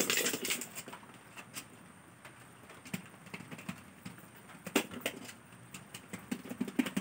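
Two white bowls held rim to rim and shaken by hand, with a tomato and a razor blade inside knocking about, giving irregular light clicks and knocks. The shaking is meant to slice the tomato on the blade.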